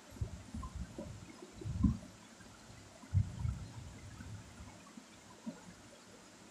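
Pencil shading on drawing paper: soft, irregular rubbing strokes, dull and muffled, with the loudest about two seconds in and another about three seconds in.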